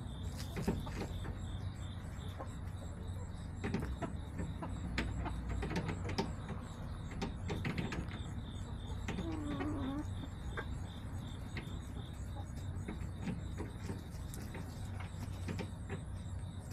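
Backyard hens moving about a coop: scattered light clicks and scratches, with one low, falling hen call about nine seconds in, over a steady low hum.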